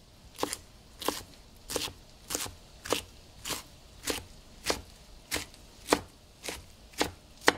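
Kitchen knife chopping broccoli rabe on a wooden cutting board: an even run of about thirteen sharp knocks of the blade on the board, a little under two a second.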